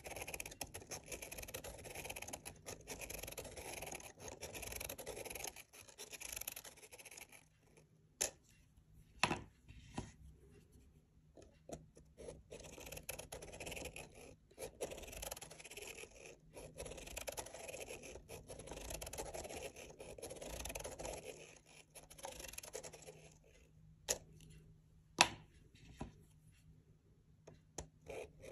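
Felt-tip marker tips scratching over paper as they trace along the edges of a plastic Spirograph-style stencil, in long stretches of strokes broken by pauses, with a few sharp clicks in between.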